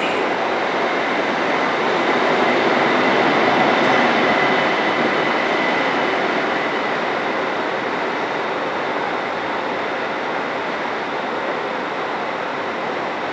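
A train running past on the rails, a steady rumble of wheels and running gear that swells to its loudest about four seconds in and then slowly eases off. A faint high whine sounds under it near the middle.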